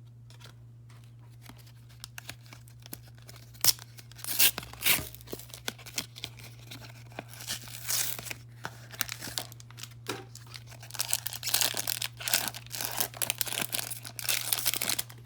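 Pokémon card packaging, a blister pack and its foil booster wrapper, being handled and torn open: scattered sharp crinkles at first, then denser tearing and crinkling through the second half, over a steady low hum.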